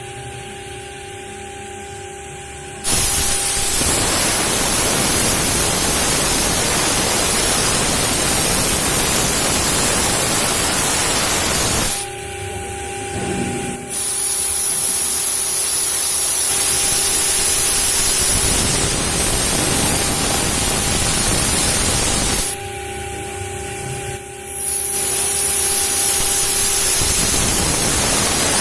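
CNC router cutting acrylic sheet: a loud, steady hissing cutting noise that starts abruptly about 3 s in, breaks off for about two seconds twice (around 12 s and 23 s), and between those stretches only the spindle's steady high whine is heard.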